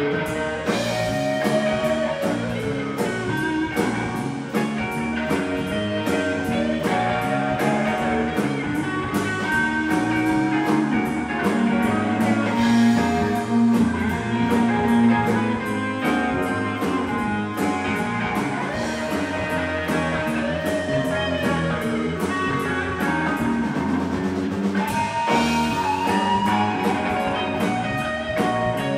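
Live rock band playing: electric guitars, bass guitar and drum kit, with a steady drum beat.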